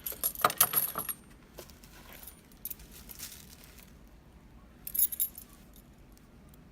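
Metal keys jingling and clinking against each other and a padlock as they are handled: a run of jingles in the first second, softer jingling around three seconds in, and another short burst about five seconds in.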